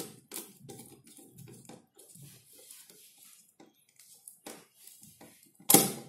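Small screwdriver working a terminal screw on a plastic switch-and-socket board while a wire is fitted: faint clicks and scrapes of metal on plastic, with one louder brushing knock near the end.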